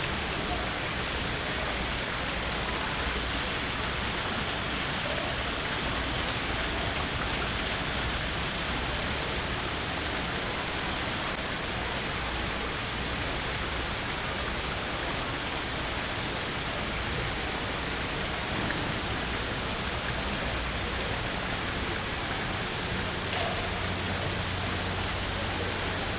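Indoor artificial waterfall pouring steadily into a rock pool, an even splashing hiss of water. A faint low hum comes in near the end.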